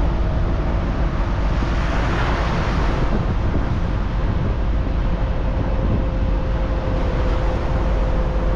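A vehicle engine running steadily under heavy wind noise on the microphone.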